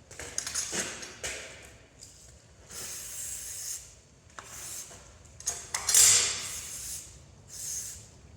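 Steel flat bar being shifted and scraped about, in irregular bursts of rubbing and scraping about a second long, with a few sharp clicks; the loudest burst comes about six seconds in.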